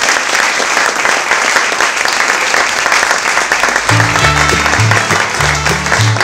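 Audience applauding at the end of a talk, loud and steady. About four seconds in, music with a low stepping bass line comes in under the clapping.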